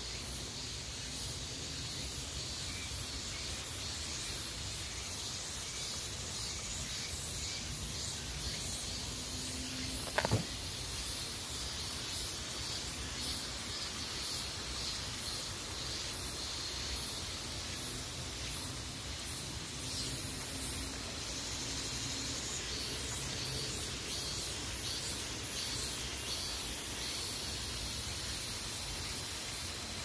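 Woodland outdoor ambience: a steady high hiss with flickering high-pitched texture and a low rumble on the microphone, broken by one sharp click about ten seconds in.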